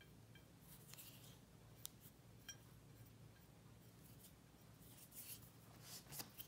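Faint rubbing and scratching of oil paint being wiped off a glazed porcelain plate in short strokes, with a couple of light clicks around two seconds in and a busier patch of rubbing near the end.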